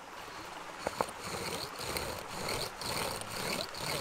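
Bow drill being worked: a wooden spindle rasping in a wooden hearth board under a plastic water-bottle-cap bearing block, in steady back-and-forth strokes of roughly two a second, starting after a couple of clicks about a second in. It is the burn-in stage, heating the hearth before trying for an ember.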